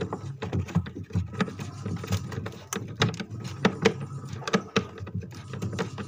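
Screwdriver turning out a screw from a small bracket on the freezer's back wall, with a run of irregular small clicks and scrapes of metal on the screw head.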